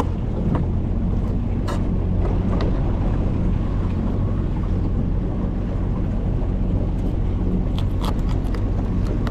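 Jon boat's outboard motor running steadily underway, a low, even hum, with a few sharp clicks as a knife cuts bait fish on a cutting board.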